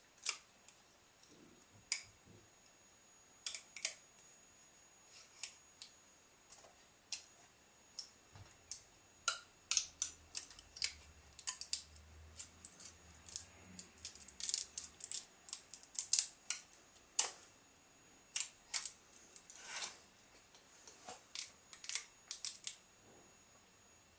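Metal scraper blade prying a freshly printed PLA phone case off the 3D printer's taped print bed: irregular sharp clicks and scrapes, sparse at first and coming much more often from about nine seconds in.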